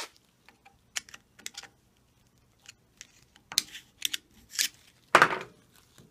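Irregular sharp clicks and clinks of steel parts on a SAAB F35 gearbox input shaft being worked by hand, with a louder clank about five seconds in.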